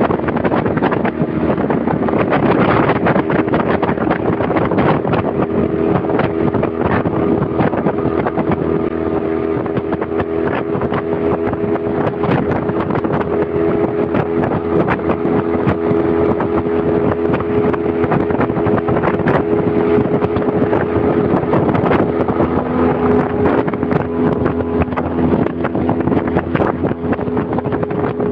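Yamaha 15 hp four-stroke outboard motor, a two-cylinder, running at a steady high speed under way on a speed run, its pitch settling about two seconds in and holding. Water rush and short knocks come through underneath.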